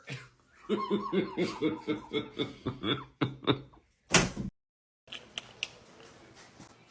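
A person laughing in a run of short bursts, about three to four a second. About four seconds in comes a loud bang, then a moment of dead silence and a few faint clicks.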